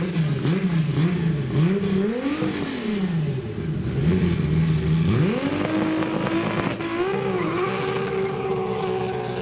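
Engine of a Mk1 Volkswagen Golf drag car at the start line, revved up and down several times, then brought up about five seconds in and held at steady high revs, ready for the launch.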